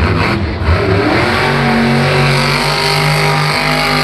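Mohawk Warrior monster truck's supercharged V8 revving, climbing in pitch about a second in and then held steady at high revs.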